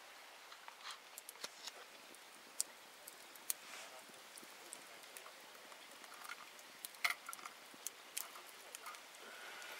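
Wood campfire crackling: faint, irregular sharp pops and snaps over a low hiss, the loudest about two and a half, three and a half and seven seconds in.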